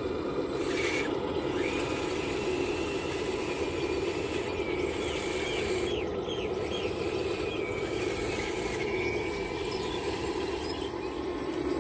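Radio-controlled scale Kobelco SK350 excavator's motors running steadily as it slews and extends its boom. Short high squeaks come over it in the middle.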